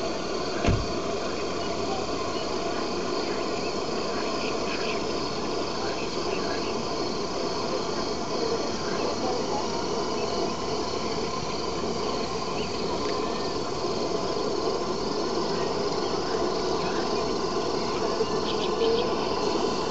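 A steady chorus of crickets chirping, with a single dull thump about a second in.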